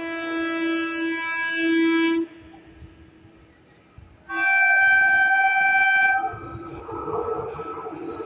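Electric locomotive horn sounding twice: a long low-pitched blast of about two seconds, then after a short pause a second, higher-pitched blast of about two seconds. After it, the rumble of the approaching passenger train builds.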